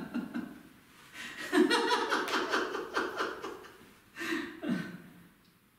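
Laughter in a few bursts of chuckling, the longest in the first half, dying away near the end.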